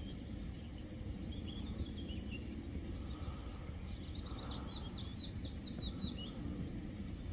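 A small songbird singing: faint twittering, then about two seconds of quick high notes that each fall in pitch, about four a second, over a steady low background rumble.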